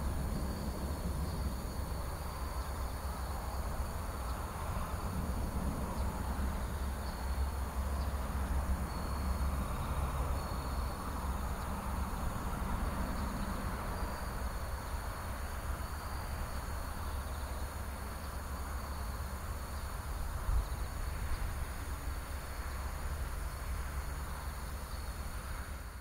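Distant Boeing 777-300ER on final approach, its GE90 engines a steady low rumble with a roar that swells slightly for a few seconds. A steady high insect trill runs underneath.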